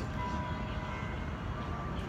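Steady low outdoor background rumble, with a few faint thin tones over it.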